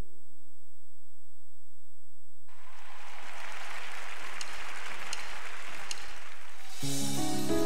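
Church congregation applauding for about four seconds after a quiet, humming start; a gospel backing track with bells begins near the end.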